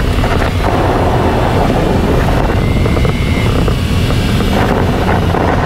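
Jeep driving along an off-road trail: steady engine and tyre noise with a low rumble, and many short rattles and knocks from the bumps.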